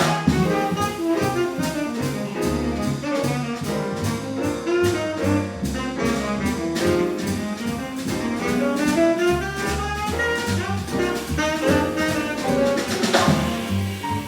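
Small jazz band playing an instrumental solo chorus, a melody line moving over stepping bass notes and a steady drum beat.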